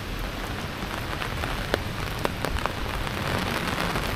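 Heavy rain pouring steadily onto wet paving and foliage, with a few sharper drop ticks about two seconds in, growing a little heavier near the end.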